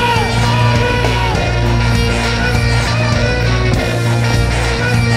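Rock band playing live and loud, with a heavy, steady bass under dense distorted guitar. Sliding high notes come in during the first second.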